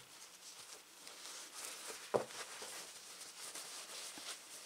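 Faint rustling of a fabric lining being pushed and settled inside a crocheted macrame-cord purse by hand, with one light tap about two seconds in.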